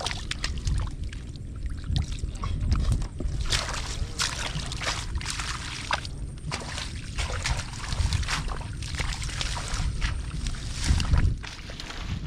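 Shallow water in a flooded field sloshing and splashing irregularly as hands work through it.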